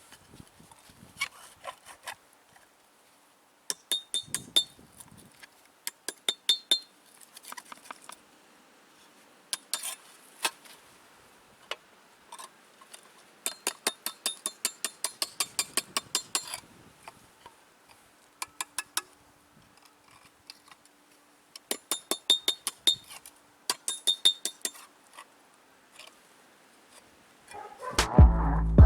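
Light metallic clicks and clinks in short bursts, some in rapid even runs of about six a second, a few ringing briefly, from metal being worked by hand. Music comes in near the end.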